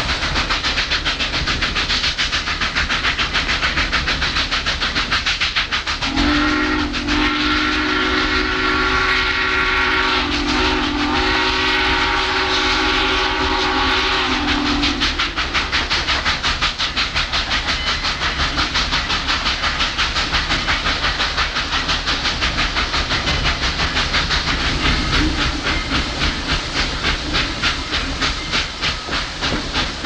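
Southern Railway No. 4501, a 2-8-0 steam locomotive, working along the line with rapid, steady exhaust beats heard close up from the cab side. About six seconds in, its steam whistle sounds one long blast of about nine seconds that wavers briefly partway through.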